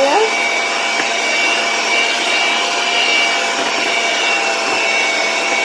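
Electric hand mixer running steadily, its twin beaters whirring through thick cake batter in a stainless steel bowl.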